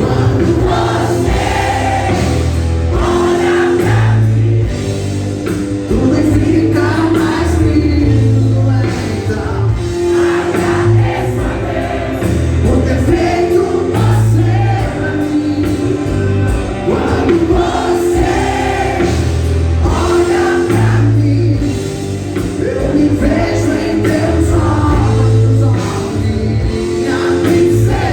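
Music: a romantic Christian pop song with group vocal harmonies sung over a band backing with bass and chords.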